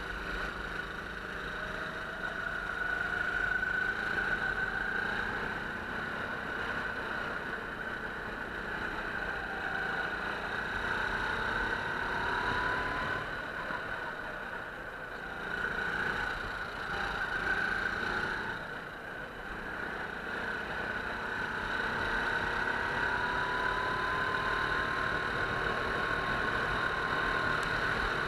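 Go-kart engine heard from onboard while lapping, the revs climbing several times and dropping briefly in between.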